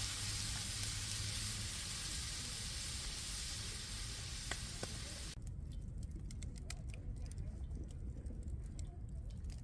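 Food sizzling and frying in a skillet over the fire, a dense steady hiss that cuts off abruptly about five seconds in. After that, only scattered small clicks and crackles over a low background rumble.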